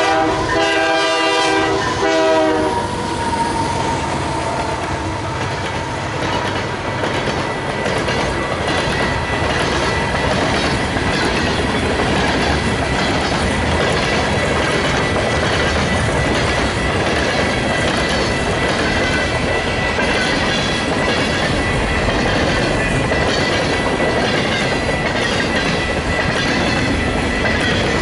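Canadian Pacific AC44CW 9840's horn sounds as the lead locomotives pass and cuts off about two and a half seconds in. After that comes a long string of covered hopper cars rolling by, with a steady clickety-clack of wheels over the rail joints and a thin, steady high ringing tone above it.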